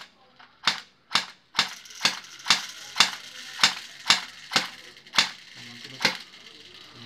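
Electric Sig Sauer airsoft pistol (AEP) fired on semi-auto: a string of sharp single shots, about two a second, each a snap of the motor-driven gearbox. The last shot comes about six seconds in.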